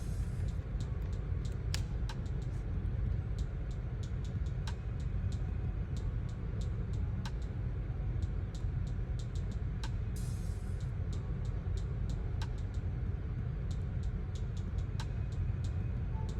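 Steady low rumble of background noise, with scattered light clicks and a brief hiss about ten seconds in.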